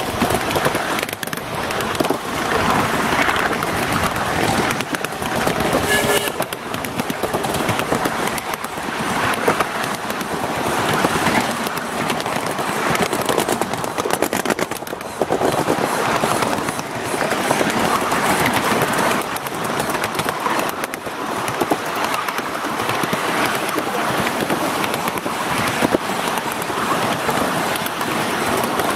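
Cars of a miniature ride-on railway rattling and clicking along the track, heard from aboard: a steady clatter of small wheels on rail.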